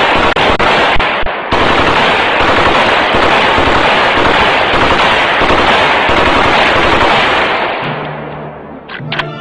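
Rapid automatic rifle fire in long continuous bursts, fading out about eight seconds in as a low steady tone comes in.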